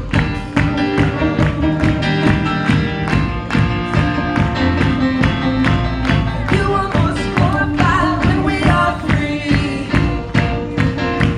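Upbeat Christian praise and worship music played by a band with a fast, steady beat, with singing rising above it about two-thirds of the way through.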